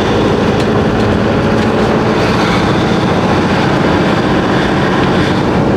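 Motorhome's engine running steadily with road and tyre noise while driving, heard from inside the cab.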